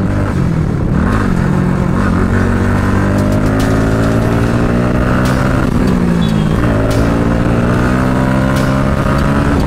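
Bajaj Pulsar NS200's single-cylinder engine running under way, its pitch climbing slowly for the first half, dipping briefly a little past the middle, then holding steady, over steady wind noise.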